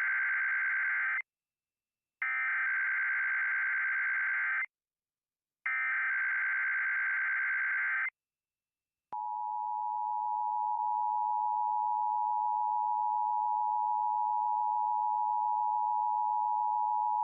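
Emergency Alert System test on broadcast radio. Three identical buzzy digital header bursts come first, each about two and a half seconds long with short gaps between them. After a second of silence, the EAS two-tone attention signal starts about nine seconds in and holds steady.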